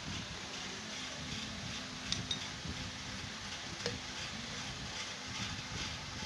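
A few faint clicks and taps of a plastic toy trumpet's pieces being handled: about two seconds in, and again near four seconds. They sit over a steady low hum.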